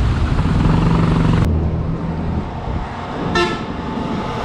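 Motorcycle and road traffic noise, with one short vehicle horn toot about three and a half seconds in.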